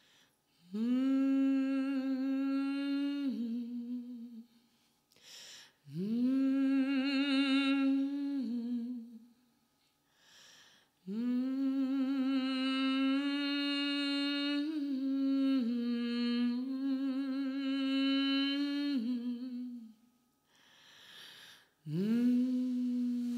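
A voice humming long held notes in four phrases, each sliding up into the note, sometimes wavering slightly, and dropping a little at the end, with short breaths between phrases.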